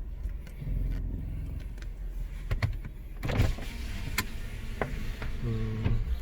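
A vehicle running, with a steady low rumble and scattered clicks and rattles.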